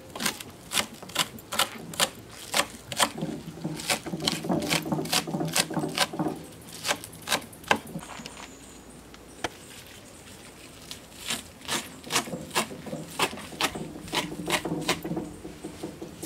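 Large kitchen knife chopping scallions on a wooden cutting board: sharp knocks of the blade striking the board at about two to three a second. The chopping pauses for a few seconds midway, then resumes.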